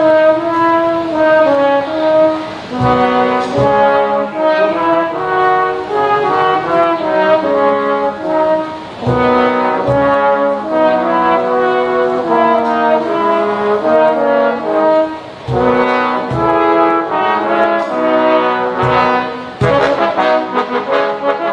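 Trombone quartet with bass trombone playing sustained chords in close harmony, the melody moving in long held notes. A cajon adds low thumps at intervals, growing busier near the end.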